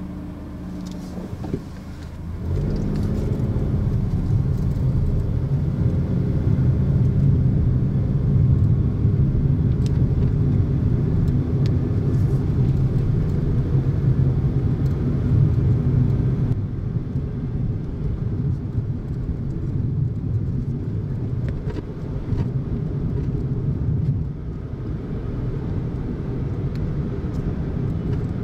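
Car engine and road noise heard from inside the cabin while driving up a winding mountain road: a steady low hum and rumble that gets louder about two and a half seconds in as the car picks up speed.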